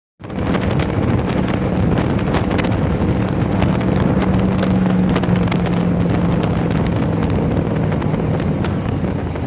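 Dune buggy engine running steadily while driving over sand, with heavy wind buffeting the microphone and scattered short clicks and rattles.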